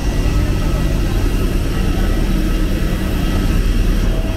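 Steady low rumble of an airliner's engines heard from inside the passenger cabin.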